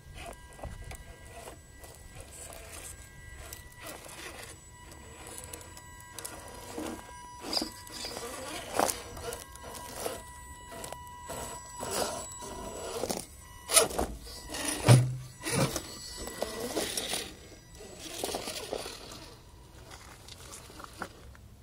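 RC scale crawler, a Tamiya Trial Hummer, climbing over rocks: a thin steady whine from its electric drive under irregular scrapes and knocks of tyres and chassis on stone, loudest about two thirds of the way through.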